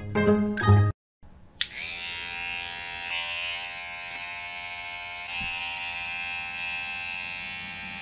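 Electric hair clippers switched on with a click, then buzzing steadily, the tone shifting slightly a couple of times.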